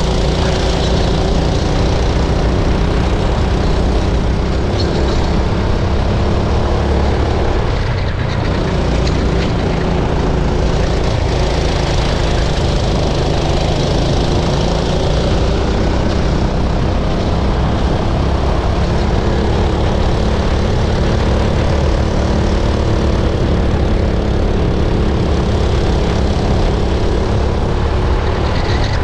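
Racing kart engine running hard, heard up close from the kart itself, its pitch shifting up and down as the kart is driven through corners.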